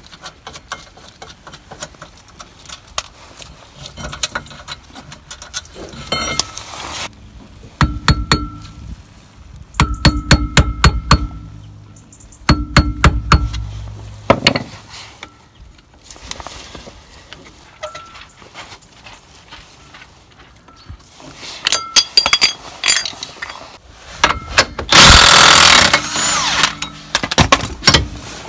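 Cordless impact wrench hammering in several short bursts as it undoes rear brake and hub fasteners; the loudest burst comes near the end. Between the bursts, tools and metal parts clink.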